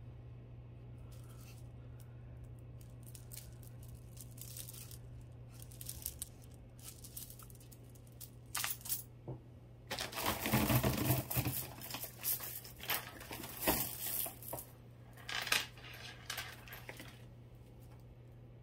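Loose costume jewelry, metal chains and beads, clinking and rattling as it is handled and untangled, with scattered clicks and a busier stretch of clinking and rustling about ten seconds in. A faint steady low hum runs underneath.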